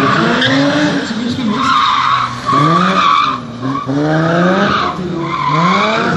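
A drifting car's engine revving hard, its pitch climbing and dropping back several times, while the tyres squeal and skid as the car slides with its wheels spinning in clouds of tyre smoke.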